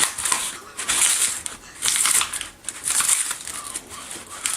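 Homemade K'nex paper shredder tearing through a piece of paper, in uneven bursts of crunching and ripping about once a second.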